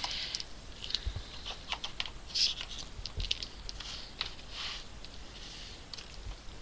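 Light handling noise: scattered small clicks and short scratchy rustles, irregular throughout, as a sketchbook page and the phone camera are moved about.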